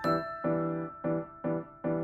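Background music: a light electric-piano tune with evenly paced chords.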